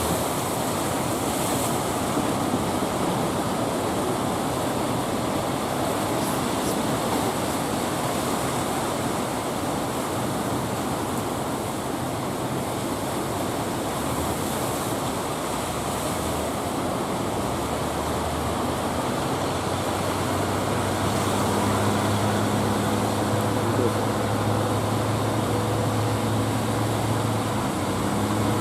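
Heavy surf breaking with wind rushing on the microphone, a loud, steady roar. About two-thirds of the way in, a low, steady engine drone joins in, most likely a boat motor.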